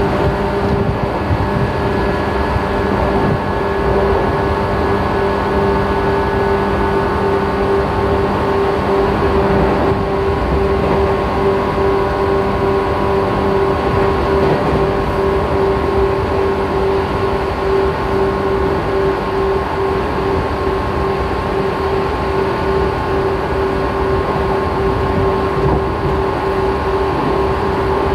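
Running sound inside a 415 series 1500-subseries electric train's motor car (MoHa 415-1501): its MT54 traction motors hum at a steady pitch over the noise of wheels on rail as the train runs at an even speed. A lower tone in the hum fades out about halfway through.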